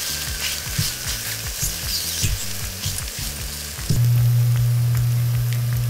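Eggs sizzling as they fry in hot oil in a pan, with the spatula scraping and tapping as they are stirred. A loud, steady low hum cuts in about four seconds in.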